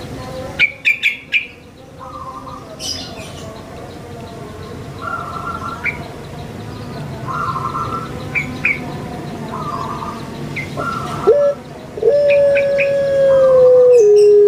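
Caged ringneck dove (puter pelung, Streptopelia risoria) cooing: near the end, one long, loud drawn-out note lasting about two and a half seconds that steps down slightly in pitch before it stops. Before it, other birds chirp briefly every couple of seconds.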